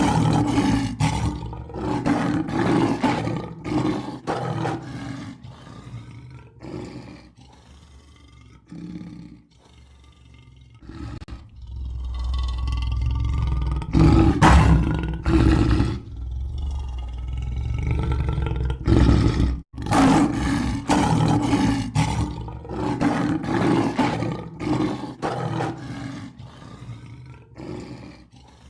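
Lion roaring in a long series of repeated grunting calls with short pauses between them. A deep low rumble runs under the middle stretch and cuts off abruptly about two-thirds of the way through.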